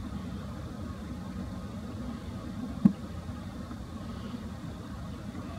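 Steady low mechanical rumble, with a single sharp click about three seconds in.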